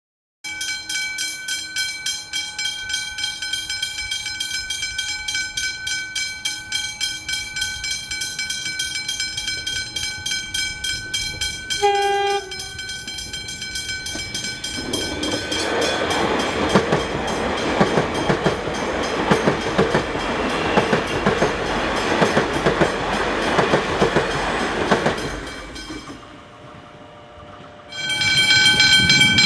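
Siemens electric suburban train approaching with a steady whine of several high tones that pulse rapidly, a short separate tone about twelve seconds in, then the loud rush and rattle of its wheels running over rough, mud-holed track for about ten seconds. After a quieter spell the pulsing whine starts again near the end.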